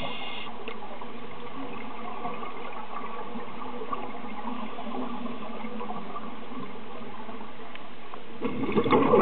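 Steady rushing, bubbling water noise, growing louder near the end.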